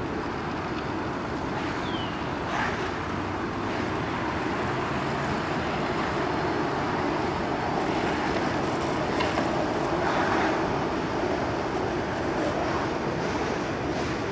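Steady rushing outdoor background noise with a faint hum, and a brief high chirp about two seconds in.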